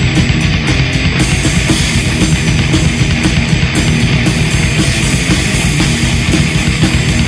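Heavy metal band playing at full loudness without a break: distorted electric guitars over fast, driving drums, from a pre-production demo recording.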